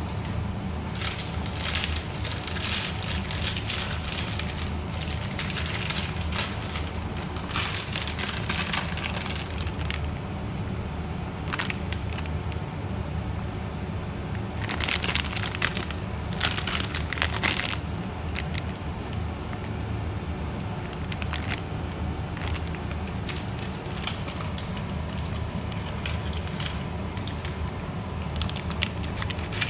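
Water at a rolling boil in a stainless steel pot, bubbling steadily, with bursts of crackling. About fifteen seconds in, a plastic bag crinkles as it is handled.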